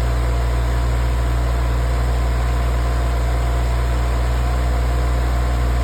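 Cat excavator's diesel engine running at a steady, unchanging speed.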